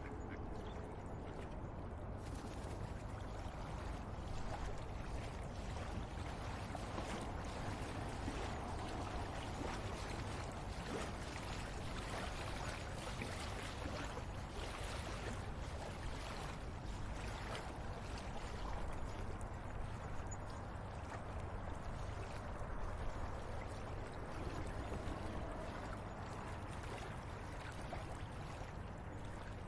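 River water running, a steady pouring and gurgling flow with many small splashes.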